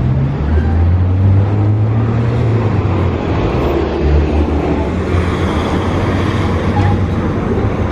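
Street traffic: car and bus engines running and passing, a steady low rumble.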